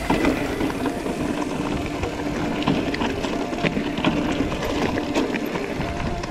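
Mountain bike rolling over a loose, rocky trail: steady tyre and rolling noise with scattered clicks and knocks from the stones, over a faint steady hum.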